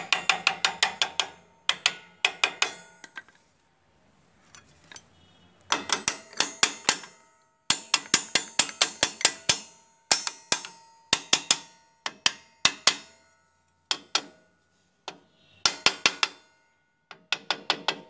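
A hammer striking metal on a three-wheeler's rear drum brake assembly, in quick runs of several blows a second with short pauses between runs; each blow rings.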